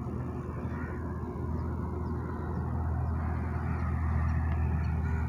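Open-field ambience: a steady low hum and rumble that grows a little louder partway through, with a few faint bird calls.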